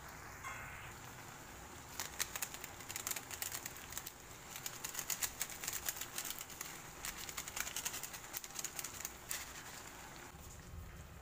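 Foil seasoning sachet crinkling as it is handled and shaken out over the pan: a dense run of sharp crackles starting about two seconds in and stopping a little over a second before the end.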